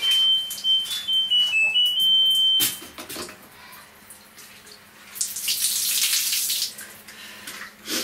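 Washing machine's control panel playing its electronic tune: a run of short beeps stepping up and down in pitch, ending about two and a half seconds in. Later comes a brief loud hiss of water.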